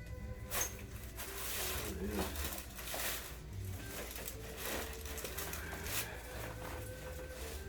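Handling sounds on a chiropractic adjusting table: a few sharp clicks or taps, including one about half a second in and another about six seconds in, and rustling as the patient is positioned. Faint background music with steady held notes plays underneath.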